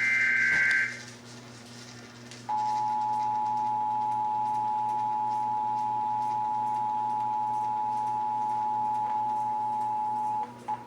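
Emergency Alert System test signal: a burst of screechy warbling digital data tones, the last of the SAME header, about a second long. After a short pause comes the steady two-tone EAS attention signal, held for about eight seconds and cutting off near the end.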